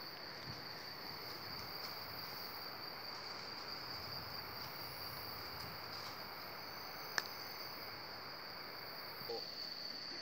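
Rainforest insects droning without a break in a high, even tone, with a single sharp click about seven seconds in.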